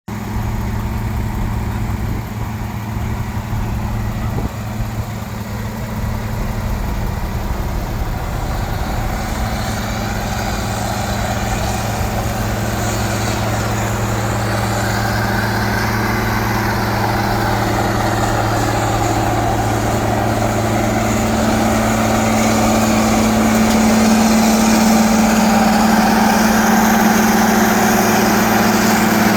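Heavy diesel engine of asphalt-paving equipment running at a steady speed, growing somewhat louder in the second half.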